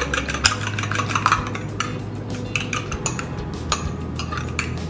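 A metal utensil beating a liquid egg mixture in a small glass bowl, with rapid clinks and scrapes against the glass that thin out in the middle.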